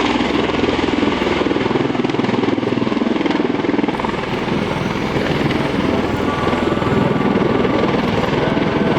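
Bell Boeing CV-22 Osprey tilt-rotor flying with its twin turboshaft engines and big proprotors running loud and steady, a dense rotor din with a rapid blade beat.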